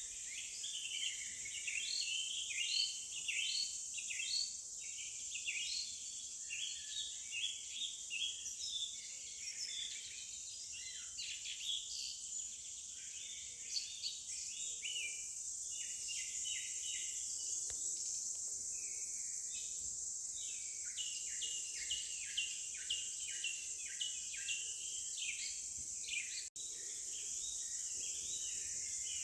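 Forest ambience: a steady high insect drone under many birds chirping and calling in quick, overlapping phrases, with a momentary cutout near the end.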